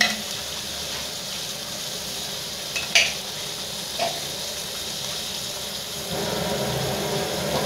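Ground paste of shallot, garlic, red chilli and tomato frying in hot oil in a pan, sizzling steadily as it is stirred with a spatula. The spatula clacks sharply against the pan about three seconds in and knocks more lightly a second later, and the sizzle grows a little louder near the end.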